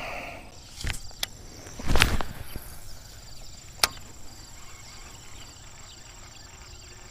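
A few sharp clicks and knocks, the loudest about two seconds in, over a steady high-pitched insect trill.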